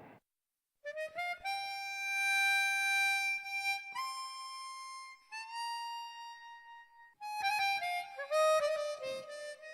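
Background music: a slow solo melody on a wind instrument with long held notes, broken by a quick run of short notes near the end.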